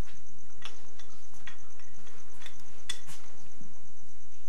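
Spoons clinking against small ceramic bowls while eating: several light, separate clinks with a brief ring.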